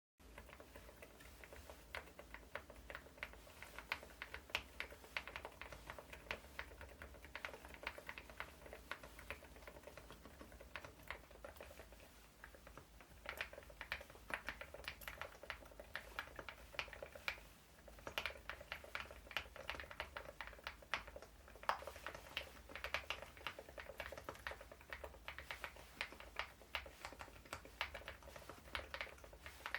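Continuous typing on an Epomaker Galaxy80 mechanical keyboard with Epomaker Nude Rosa silent switches and MDA-profile keycaps: low-noise keystrokes, several a second, with a couple of short pauses midway.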